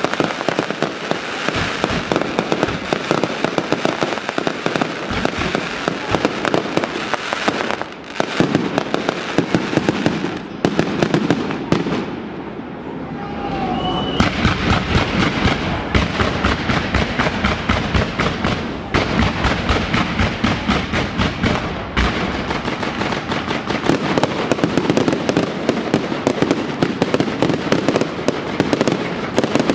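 Fireworks display: a continuous rapid barrage of bangs and crackles from aerial shells. It thins and quietens briefly about twelve seconds in, then builds again.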